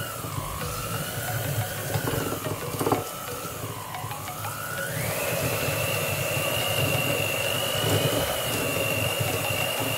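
Electric hand mixer running, its beaters working a thick cheese and mayonnaise mixture in a glass bowl. The motor's whine dips and recovers in pitch, with a sharp knock about three seconds in, then rises to a higher, steady pitch about halfway through.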